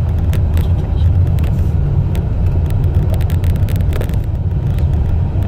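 Car cabin noise while driving: a steady low rumble of engine and tyres on the road, with scattered light clicks and taps over it.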